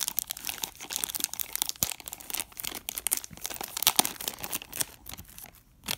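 Thin clear plastic bag crinkling and rustling in irregular crackles as fingers work it open around a doll head, easing off briefly near the end.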